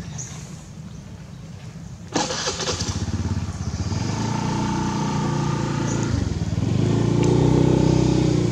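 A motor vehicle engine comes in suddenly about two seconds in and keeps running with a steady pitch, growing louder toward the end.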